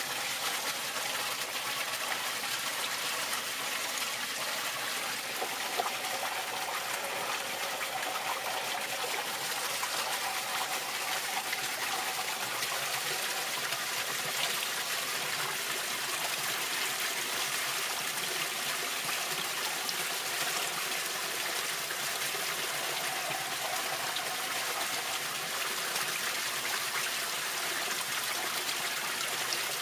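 Pond water flowing steadily from a pipe into a homemade aquarium-tank sieve filter, trickling and splashing.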